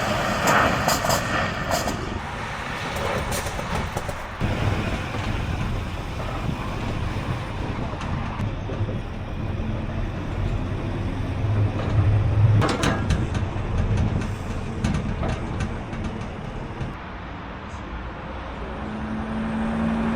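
Truck engine running under way, with short hisses from the air system in the first couple of seconds and again about twelve seconds in.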